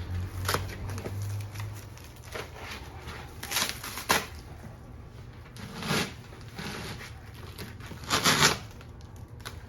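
Packaging handled and unwrapped, giving short bursts of rustling and crinkling, about four in all, the loudest near the end.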